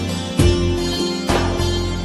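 Instrumental background music with a slow melody, new notes coming in about every half second to a second.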